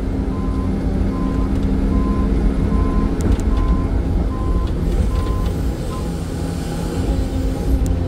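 Excavator's diesel engine running steadily under digging load, heard from inside the cab. A high electronic beep repeats about three times every two seconds and stops about six seconds in.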